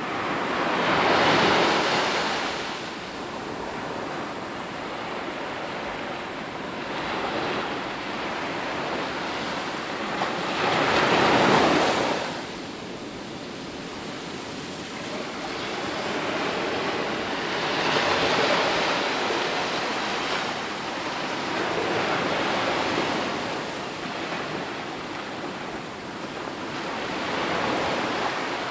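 Ocean waves breaking and washing on a shore, a steady hiss of surf that surges and falls back every several seconds. The biggest wave comes a little before halfway.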